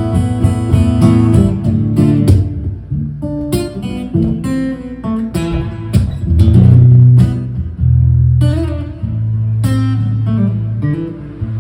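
Instrumental break of a song: guitar picked and strummed, with deep low notes held from about halfway through.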